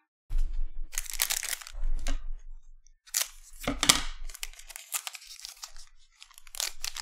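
Shiny foil wrapper of a 2020-21 Panini Revolution basketball hobby pack being handled and torn open by hand, a string of crinkling rips, loudest about a second in and again around three to four seconds in.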